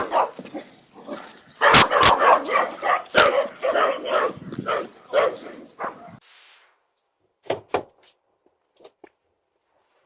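A dog barking over and over, stopping abruptly about six seconds in; two sharp clicks follow a little later.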